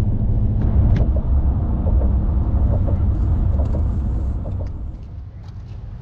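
Road noise of a vehicle driving at highway speed: a loud, steady low rumble of engine and tyres that fades away about five seconds in.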